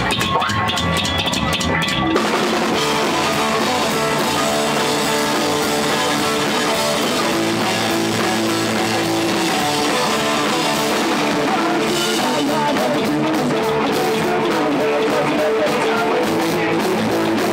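Live rock band playing loud: upright double bass, hollow-body electric guitar and drum kit, in a passage without singing. The sound fills out with sustained guitar notes from about two seconds in.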